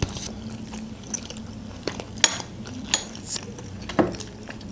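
Quiet eating at a table: chewing of flatbread, with a few sharp clicks of a metal fork against a ceramic plate, one about four seconds in.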